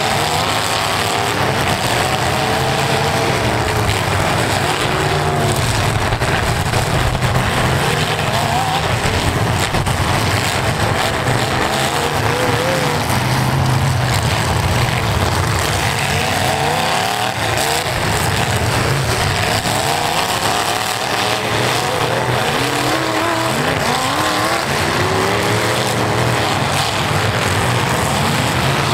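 Several V8 demolition derby cars' engines running and revving at once, their pitches rising and falling over one another continuously.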